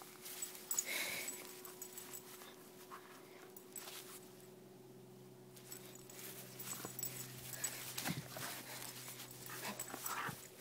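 A dog panting faintly during a tug-of-war with a plush toy, with scattered soft rustles and small clicks.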